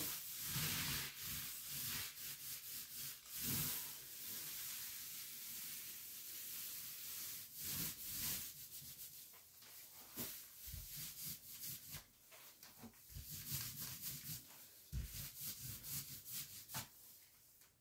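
Paint roller on an extension pole being rolled through wet paint on a wall in repeated strokes: a hissing rub with many small irregular crackles.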